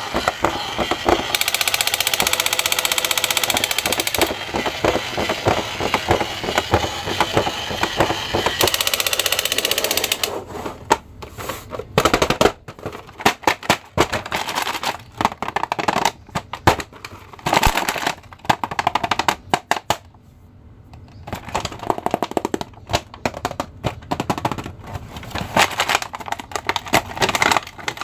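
Battery-operated crawling Spider-Man soldier toy playing its electronic rapid-fire machine-gun sound effect for about ten seconds. Then come irregular clicks and crinkles of cardboard and plastic toy packaging being handled and opened.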